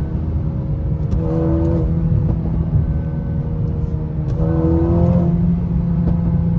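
Mercedes-AMG A35's turbocharged 2.0-litre four-cylinder engine pulling under acceleration over a steady drone, its pitch climbing twice as it revs up.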